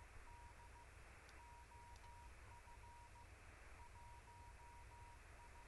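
Faint Morse code (CW): a single steady tone keyed on and off in dots and dashes, over a low hiss and hum.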